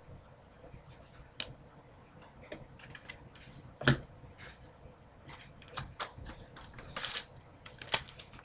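Trading cards being handled and flipped through: scattered soft clicks and slides of card stock, with one sharper tap about four seconds in.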